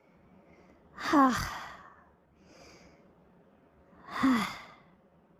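A person's voice sighing twice, about three seconds apart; each sigh is a breathy 'haah' that falls in pitch.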